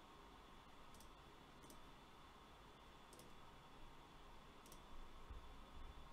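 Near silence with a low steady hiss and four faint, sharp computer mouse clicks, unevenly spaced.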